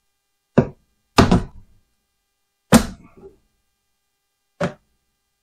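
Four separate knocks and thunks of hard plastic being handled at a resin-print wash station as a printed part is put into the alcohol cleaner.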